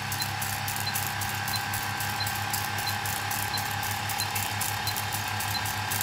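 Film-projector countdown sound effect: a steady whirring, rattling projector run with a faint short high tick about every two-thirds of a second, one for each number of the countdown.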